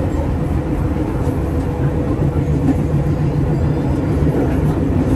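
A moving road vehicle with a steady low rumble, loudest in the bass.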